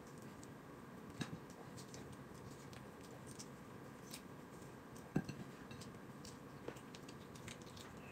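A few faint, scattered clicks and taps of chicken bones and fingers against a ceramic plate and bowl while meat is picked off a chicken leg by hand; the sharpest tap comes about five seconds in.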